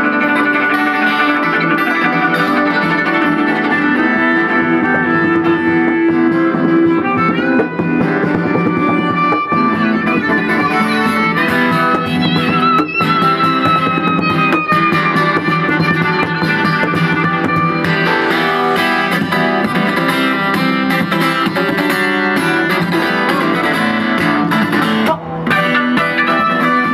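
A guitar and violin duo playing live: a cutaway acoustic guitar strummed and picked hard and fast, with long, wavering high notes held above it through the middle.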